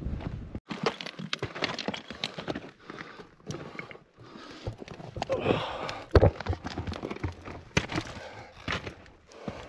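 Footsteps crunching irregularly on loose rock and gravel.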